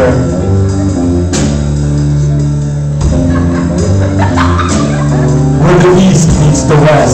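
Live rock band playing amplified electric guitar, bass guitar and drum kit, with cymbal crashes and a singer's voice over it at times.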